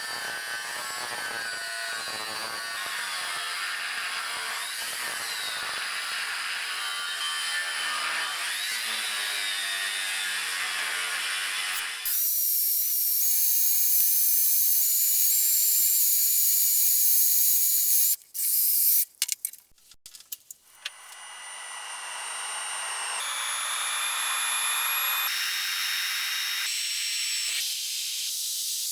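Hand and power tool work on a wooden slingshot rifle in several edited segments: rubbing and scraping on wood for the first half, then a loud steady hiss with a thin high whine, a few clicks, and more hissing near the end.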